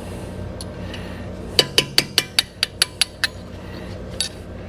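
A quick run of about ten sharp metallic clinks, about five a second, as steel brake caliper parts and hand tools knock together while the slide pin is being worked out.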